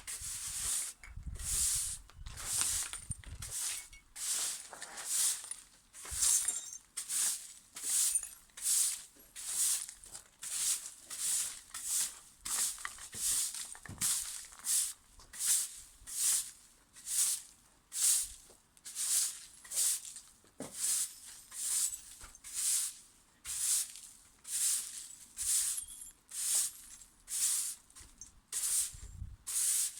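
Steady rhythmic scraping strokes, a little more than one a second, each a short swish, from garden cleanup work.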